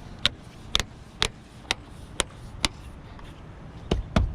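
Sharp taps on a plastic cowl panel, about two a second, as it is knocked down to seat its retaining clips. After a short pause, heavier and quicker knocks begin near the end.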